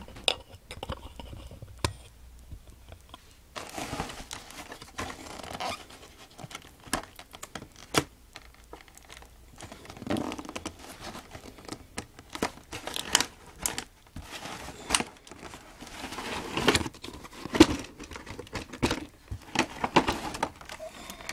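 Packaging of a boxed collectible figure being handled and opened: irregular crinkling and tearing with scattered sharp clicks and knocks.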